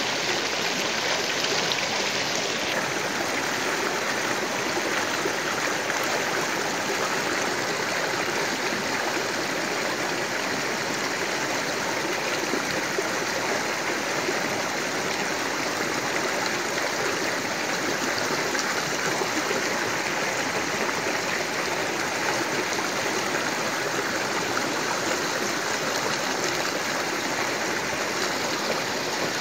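Flowing stream water rushing steadily and evenly.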